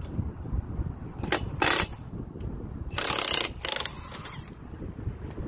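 Wind buffeting the microphone, with a few short, loud hissing bursts, the longest about three seconds in.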